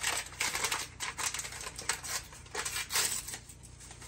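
Packet of instant lemon pudding mix crinkling and rustling in a run of short, crackly bursts as it is handled and shaken out over a stainless steel mixer bowl.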